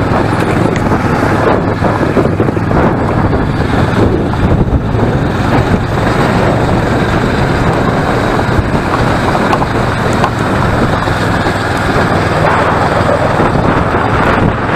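Loud, steady wind rush on the camera microphone of a moving motorcycle, with the Kawasaki Versys 650's parallel-twin engine running underneath.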